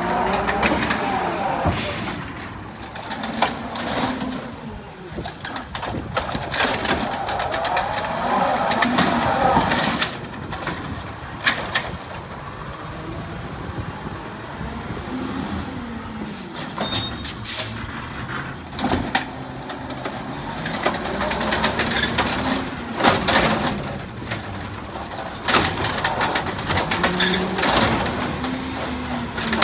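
Natural-gas automated side-loader garbage truck at work: the engine rises and falls in pitch as the hydraulic arm dumps a cart into the hopper and reaches for the next, with several sharp bangs and clatters. The truck's air brakes hiss as it pulls up between carts.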